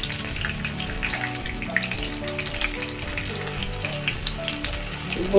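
Ring-shaped savoury donuts deep-frying in hot oil in a pan: a steady sizzle with fine crackling.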